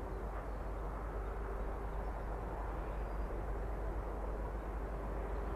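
Electric train of the Chichibu Railway running at a distance: a steady whine over a low rumble.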